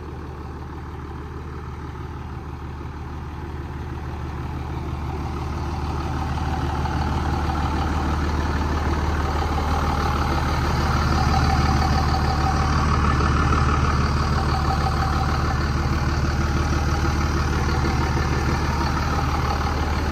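Third-generation Dodge Ram's 5.9 L Cummins inline-six turbo diesel idling steadily. It grows louder over the first ten seconds or so, then holds even.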